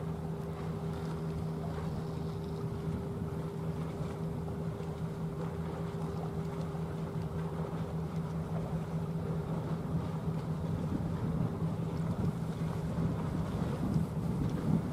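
Steady low drone of a small motor boat's engine running underway across the water, with wind buffeting the microphone and growing stronger near the end.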